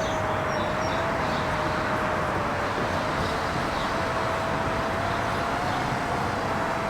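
FPV racing quadcopter's electric motors and propellers running at a steady throttle: a steady motor whine over a rush of air.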